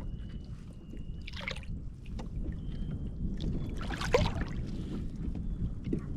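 Wind buffeting the microphone in a steady low rumble, with two brief splashy rustles, one about a second and a half in and a louder one about four seconds in.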